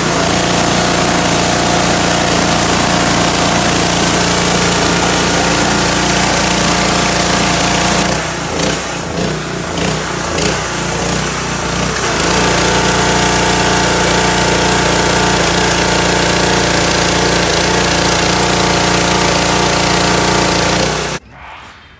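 Petrol pressure washer running: a steady small-engine drone under the hiss of the pump and spray. For a few seconds near the middle it wavers and dips, then runs steadily again until it cuts off suddenly near the end.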